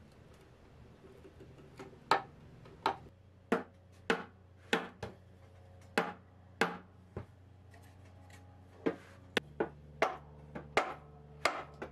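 A hammer knocking a wooden block against a table rail, driving the old glued mortise-and-tenon joint apart. About fifteen sharp wooden knocks, roughly one to two a second, start about two seconds in, with a short pause before the last few.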